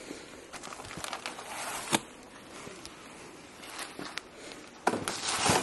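Plastic-wrapped flat packs being handled: rustling with scattered clicks and knocks, one sharp knock about two seconds in, and a louder burst of rustling and knocks near the end.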